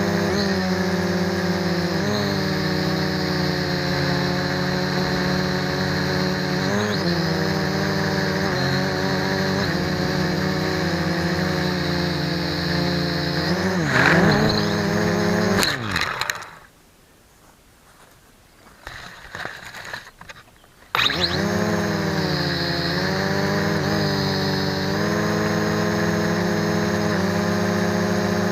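MJX X400 V2 quadcopter's motors and propellers buzzing in flight, the pitch rising and falling as the throttle changes. About halfway through, the motors cut out for around four seconds, with a few brief stutters, then spin back up.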